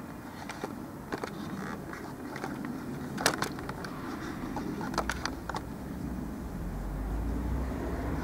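Low, steady outdoor rumble like distant road traffic, swelling in the bass in the second half, with a few short sharp clicks in the middle.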